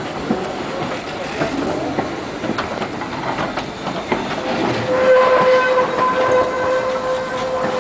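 A metre-gauge museum train rolling through the yard with wheels clattering over the track; about four seconds in it sounds one long, steady signal blast that holds to the end.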